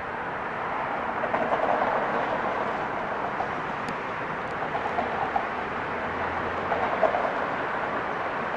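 Siemens-Duewag U2 light rail train rolling slowly along street-running track: a steady running noise of wheels on rail, with a few brief louder clanks.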